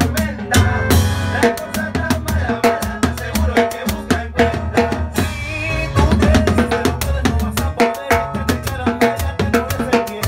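Timbales played with sticks over a salsa band: rapid strokes on the drums in a steady rhythm, with bass and other instruments underneath and a cymbal crash about a second in.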